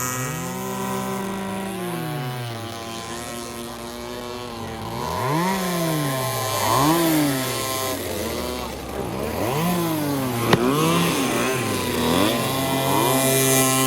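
Several small string-trimmer engines on homemade RC boats buzzing out on the water, one holding a steady note while others rise and fall in pitch again and again as they throttle up and back off. A single sharp click sounds about two-thirds of the way through.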